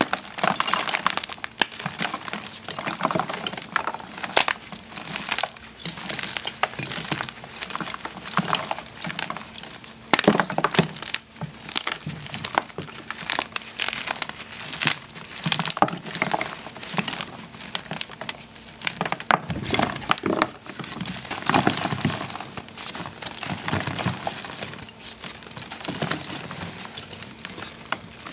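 Gym chalk blocks (magnesium carbonate) being crushed and crumbled between bare hands: a dense, continuous crackling crunch made of many sharp cracks, with a few louder breaks as pieces snap apart.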